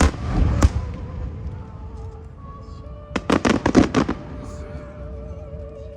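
Fireworks exploding: a loud bang at the start and another just over half a second later, then a quick run of crackling reports about three seconds in. Background music with sustained tones runs underneath.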